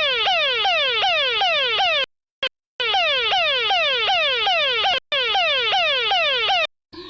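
Electronic fire alarm sounding: a loud tone that sweeps down in pitch over and over, about three times a second. It breaks off twice for a moment and stops shortly before the end.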